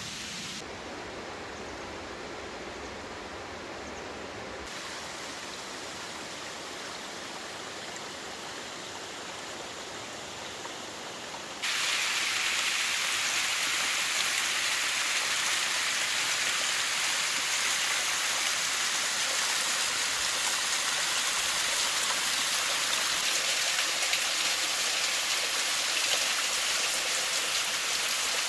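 Waterfall: a steady rush of falling water. About 12 seconds in it turns abruptly louder and brighter.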